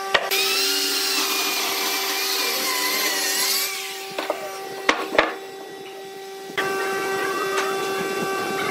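A handheld electric power tool runs for about three and a half seconds, its whine wavering up and down, then stops. A few sharp knocks follow.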